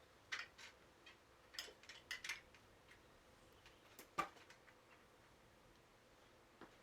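Faint, scattered metallic clinks and clicks of a hand tool working on a bicycle's rear wheel dropout, with a cluster of taps in the first half and one sharper click about four seconds in.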